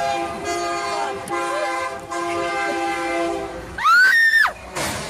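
Diesel freight locomotive's multi-tone air horn sounding long warning blasts as it nears a grade crossing, a chord of several steady tones that breaks off briefly about a second in and stops after about three and a half seconds. About four seconds in comes the loudest sound, a brief high-pitched cry that rises and then falls in pitch.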